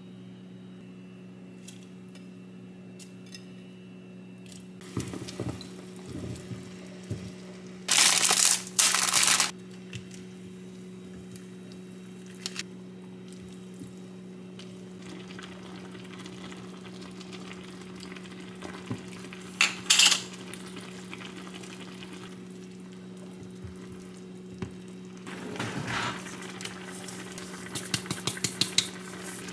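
Tteokbokki sauce simmering in a pan on an induction cooktop and being stirred with a spatula, over a steady low hum. There are loud rustling bursts about eight seconds in and again near twenty seconds, and quick rattling shakes of a seasoning shaker near the end.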